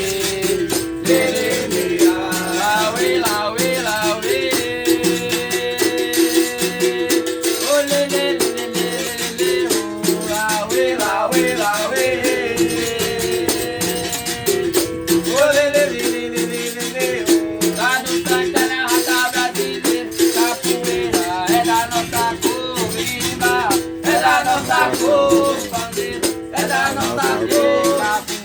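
Berimbau being played: a steady rhythm of quick strikes on its single string, with a rattle shaking along.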